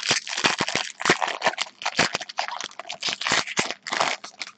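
Foil wrapper of a trading card pack being opened and crumpled by hand: a dense, irregular run of crinkling crackles.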